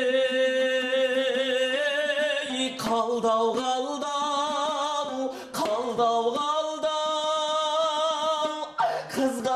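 A male voice singing a Kazakh folk song in long, high held notes with vibrato, in three phrases, with a dombra strummed briefly between them.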